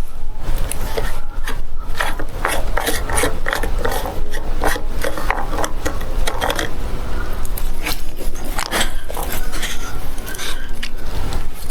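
Plastic irrigation pipe fittings being handled and worked together: repeated irregular scrapes, rubs and clicks of PVC on PVC, over a steady low rumble.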